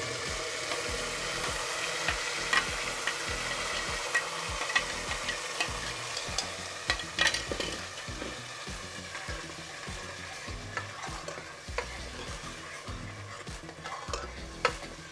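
Wet ground onion, tomato, garlic and ginger paste frying in hot oil in a pressure cooker: a steady sizzle with many sharp spattering pops, slowly dying down.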